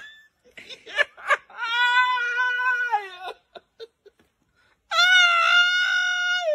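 A man laughing hard: a few short bursts about a second in, then two long, high-pitched squeals of laughter, each held for over a second.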